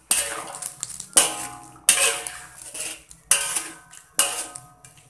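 Metal spatula scraping and knocking against a metal wok while stirring a thick coconut-milk curry: five separate strokes, each ringing briefly.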